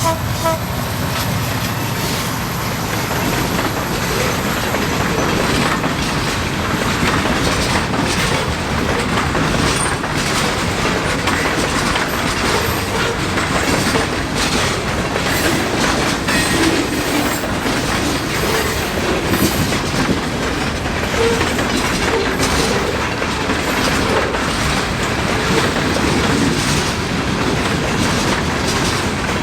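Mixed freight train cars rolling past at steady speed, their steel wheels clicking over rail joints with a constant rumble of wheels on rail.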